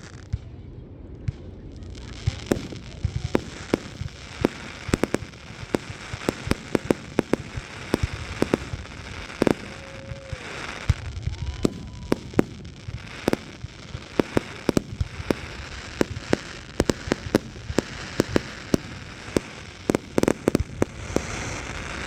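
Fireworks going off in a dense barrage: many sharp bangs and pops, several a second at times, over a constant crackle.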